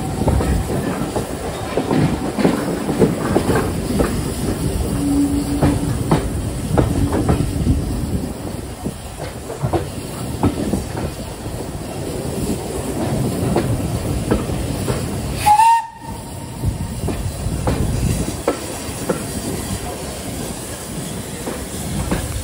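Steam-hauled passenger train heard from an open carriage window while under way: wheels running and clicking over rail joints, with one short, loud steam whistle blast about two-thirds of the way through.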